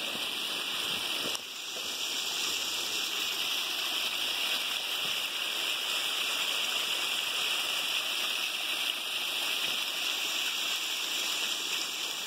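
Waterfall heard up close: a steady rush of falling water.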